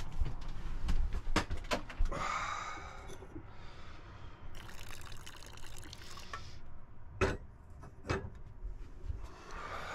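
Coffee being poured from a stovetop moka pot into a cup, a couple of seconds of pouring, with a few sharp clicks and knocks before and after.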